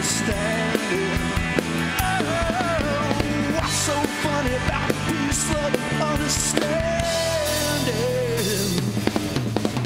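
Live rock band playing straight after the last sung chorus of a song: drums with cymbal crashes, bass, and a lead melody line that bends and holds a long note near the end.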